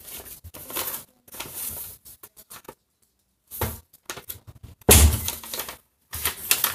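Package contents crinkling and a folded paper slip rustling as it is opened out, in irregular crackly bursts. There is a short silent gap a little before the middle, and the loudest rustle comes near the end.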